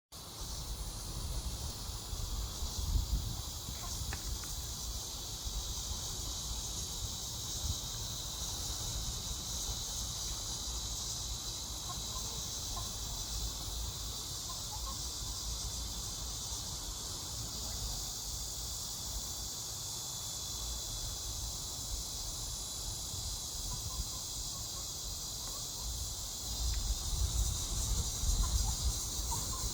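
A steady, high-pitched chorus of insects, with low wind rumble on the microphone that comes and goes and grows stronger near the end.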